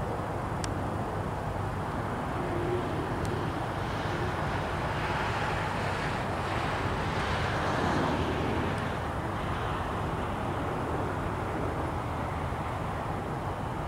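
Steady rumble of a jet airliner taxiing. A car passing close by swells up about halfway through and fades away again.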